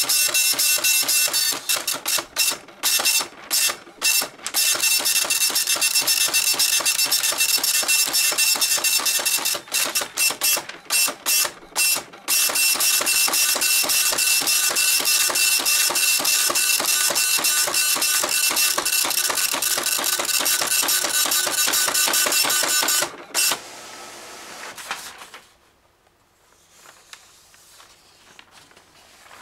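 Epson LQ-300+II 24-pin dot matrix printer printing in high-speed draft text mode: a rapid, high-pitched buzz of pin strikes as the print head sweeps across the paper, broken by a few short pauses. The printing stops about 23 seconds in.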